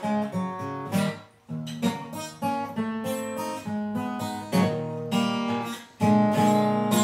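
Acoustic guitar playing a blues instrumental break, a run of picked notes and strummed chords without vocals.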